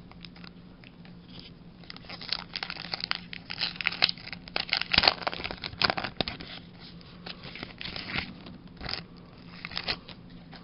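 Foil booster pack wrapper being crinkled and torn open by hand: a run of crackling rustles starting about two seconds in and dying away near the end, over a faint steady low hum.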